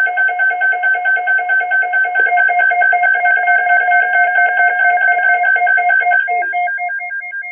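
Loud electronic alert tone on a few fixed pitches, pulsing evenly several times a second; about six seconds in it breaks into a run of separate short beeps.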